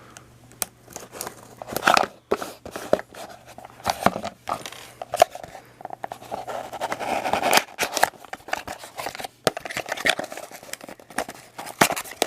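A small package being opened by hand: repeated scrapes, clicks and tearing of the box and tape, with crinkling of the wrapping.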